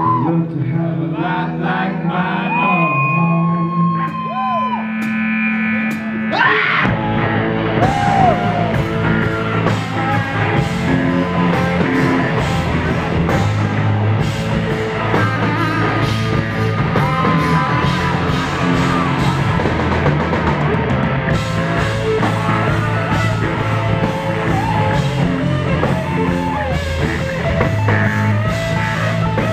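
Live rock band. For the first several seconds there is singing over electric guitar, then about seven seconds in the full band comes in loud and keeps playing.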